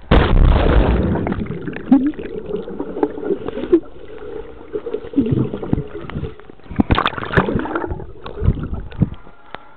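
A camera plunging into swimming-pool water with a sudden splash, then underwater sound: muffled gurgling and bubbling of water stirred by swimming, with louder churning about seven seconds in.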